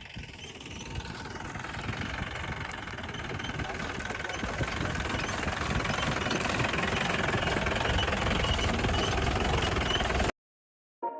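An engine running steadily, growing louder over several seconds, then cutting off abruptly near the end.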